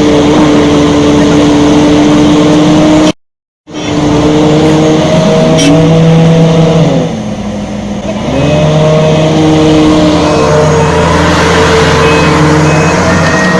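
Excavator's diesel engine running loud and steady, cut off for an instant about three seconds in. Around the middle its pitch and level drop, then climb back as the engine works under load again.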